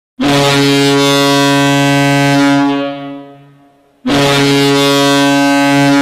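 Färjestad BK's recorded ice hockey goal horn, a deep horn sounding two long blasts. The first lasts about two and a half seconds and then fades away; the second starts about four seconds in.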